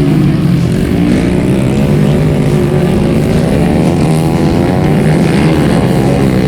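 Several old trail motorcycles with horizontal-cylinder engines racing, their engines revving up and easing off in overlapping, wavering pitches.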